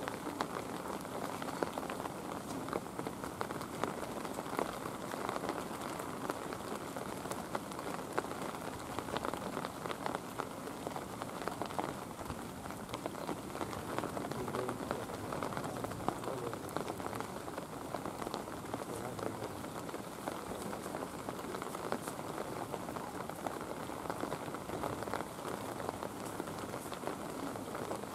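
Steady rain falling, with a dense scatter of small drop clicks from drops hitting surfaces.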